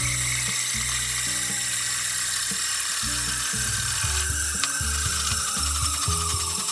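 Background music with a plodding bass line, over a steady high hiss and a faint high tone that slowly falls in pitch.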